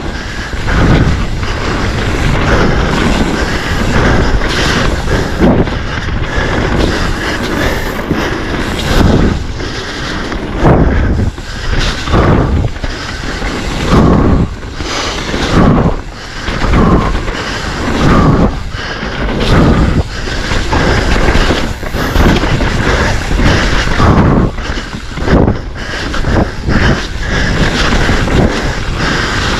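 Mountain bike ridden hard over a rough dirt trail: wind rushing over the microphone and the rumble of tyres on dirt, broken by frequent irregular thuds and rattles as the bike hits bumps.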